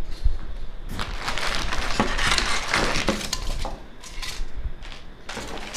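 A subwoofer's shipping box being torn open and its packing pulled out by hand: a dense stretch of cardboard and packing noise, with rustling, scraping and crunching, then scattered knocks and clicks near the end.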